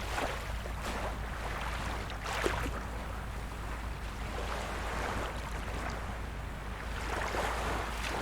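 Sea waves washing in, swelling and easing every few seconds over a steady low rumble.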